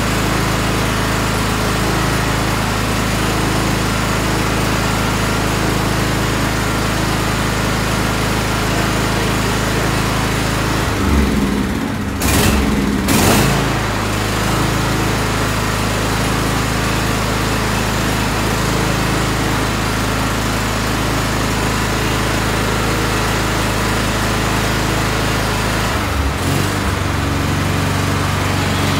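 Tractor engine running at a steady speed. A little past a third of the way in its note is disturbed and two short sharp sounds stand out, and near the end the engine note shifts again.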